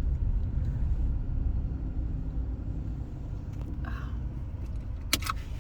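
Car running, a steady low rumble heard from inside the cabin, with a short sharp click near the end.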